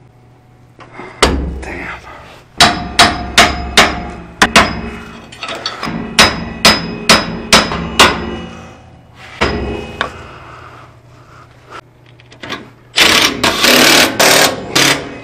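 Hammer blows on a steel receiver-hitch bumper bracket at a mini truck's frame, knocking it loose: about a dozen sharp, ringing metal strikes, some in quick runs, over the first nine seconds or so. Near the end comes a louder rattling burst lasting about two seconds.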